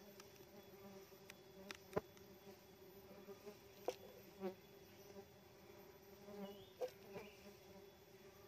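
Faint, steady hum of small stingless bees (Tetragonula laeviceps) flying around their opened hive, with a few sharp clicks, the loudest about two seconds in.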